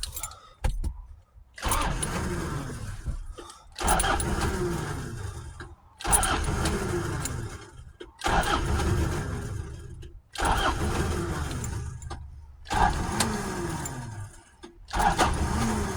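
Starter motor cranking the Toyota Hilux N70's diesel engine in about seven short bursts, each slowing as it goes, without the engine catching. The cranking is kind of quiet, as from a weak battery or tired starter, just after the new fuel filter housing was fitted and primed.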